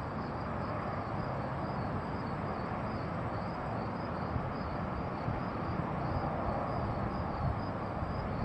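Steady outdoor background hiss from a hilltop, with faint insects chirping high-pitched in an even rhythm, about three chirps a second.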